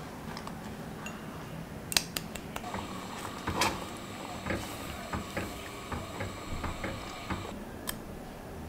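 Silicone spatula stirring a heating orange juice, sugar and cornstarch mixture in a saucepan, knocking and scraping against the pot with repeated light clicks. A sharper knock comes about two seconds in and another near the end.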